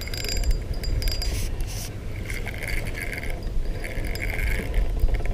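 Spinning reel being cranked to bring in a hooked fish, its gears whirring in two short spells, over a low rumble of wind on the microphone.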